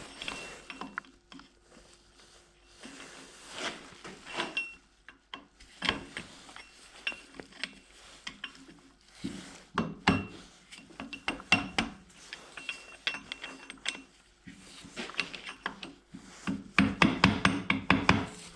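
Hand tools working on a motorcycle engine during disassembly: scattered metallic clicks and knocks, then a fast, even run of clicks near the end.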